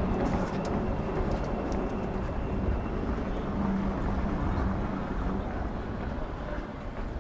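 City street ambience with traffic noise, and a low steady hum for a couple of seconds in the middle.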